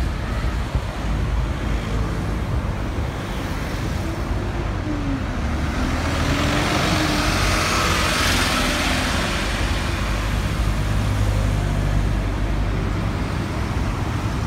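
Road traffic: a steady low engine rumble, with a vehicle passing close by about halfway through, where the hiss of its engine and tyres swells to the loudest point and fades again.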